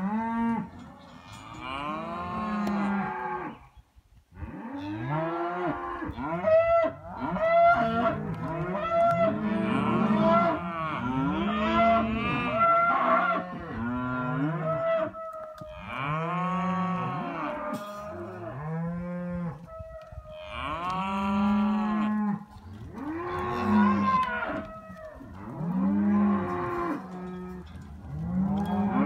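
Several young cattle mooing almost without pause, their calls overlapping, with a short break about four seconds in.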